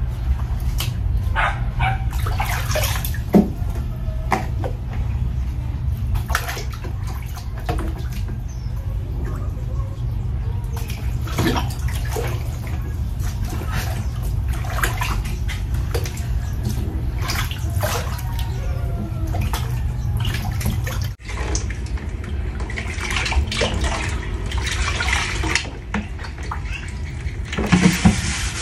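Grape juice sloshing and splashing in a plastic cooler as a pair of Crocs is dipped and swished through it, in irregular splashes over a steady low hum. Near the end, rubbing as the closed cooler lid is wiped.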